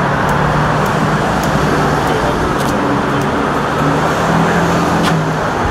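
Steady street traffic noise with the low hum of idling vehicle engines.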